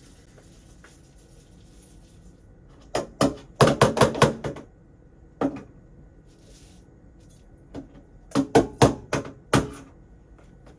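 Sharp knocks of a container against a cooking pot while washed rice is tipped in: a quick run of raps about three seconds in, a single one, then another quick run near the end.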